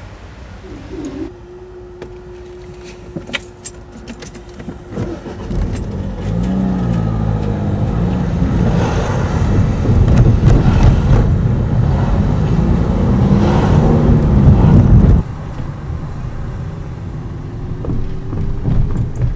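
Cars and a van driving over a level crossing close by, engine and tyre noise building to a loud pass-by with engine notes rising and falling, then cutting off suddenly about fifteen seconds in. A steady hum is heard for a few seconds near the start.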